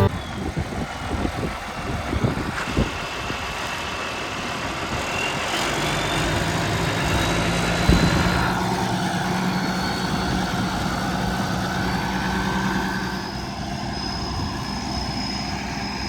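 A vehicle engine running steadily, with a few knocks and rattles in the first few seconds and another about eight seconds in.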